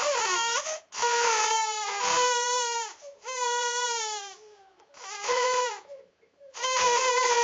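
Young child bawling: about five loud, held wailing cries in a row, each dropping in pitch at its end, with short catches of breath between them.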